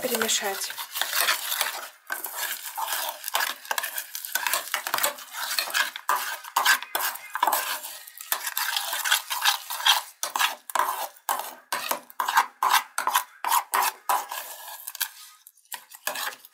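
Metal spoon scraping and clinking against a bowl in quick repeated strokes as oat flakes and seeds are stirred together with egg white. The strokes soften near the end.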